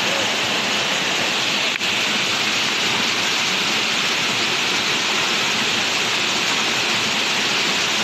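Waterfall rushing: a loud, steady roar of falling water pouring over rock.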